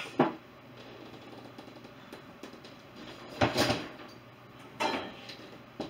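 Kitchen clatter from unloading a dishwasher: a few separate knocks and clinks of dishes being lifted out and put away in the cabinets, the loudest about three and a half seconds in.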